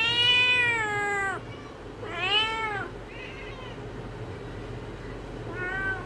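A cat meowing: a long drawn-out meow that rises and falls, a shorter meow about two seconds in, and a brief, softer meow near the end.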